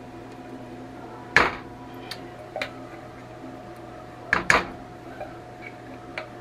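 Rubber spatula and tin can knocking against the rim of a metal pot while condensed soup is scraped out. There is one sharp knock about a second and a half in, two lighter taps, then a quick double knock past four seconds, over a steady low hum.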